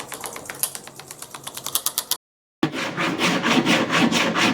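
Hand sanding of the filled plywood body, sandpaper rubbing back and forth in quick, even strokes. A short silent break comes about two seconds in, and after it the strokes are louder, about three a second.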